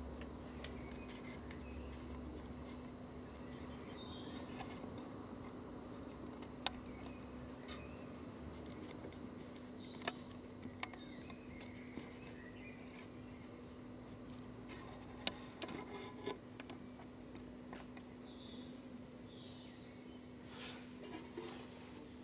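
Faint outdoor ambience: a steady low hum with a few distant bird chirps and scattered small clicks.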